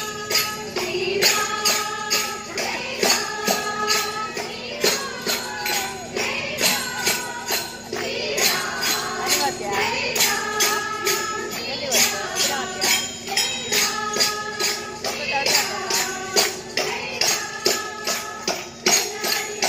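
Dance music with a steady beat of jingling percussion and a short melodic phrase recurring about every two seconds.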